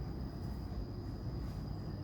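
Low, rumbling background noise with one steady high-pitched whine held throughout, like an insect calling.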